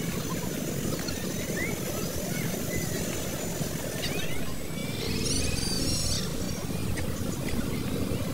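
Steady low wind rumble on a handheld phone's microphone, with birds chirping now and then and a quick run of chirps about five seconds in.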